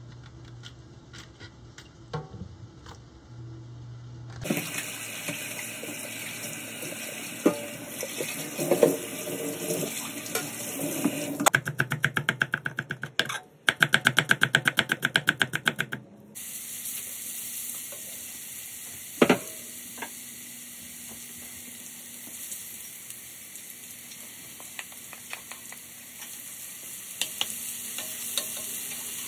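Rapid knife chopping on a cutting board as shallots are minced, a quick run of evenly spaced strokes with a brief pause. It then gives way to a steady sizzle of minced lemongrass and red chili frying in oil in a wok, with a few sharp knocks of the stirring spatula.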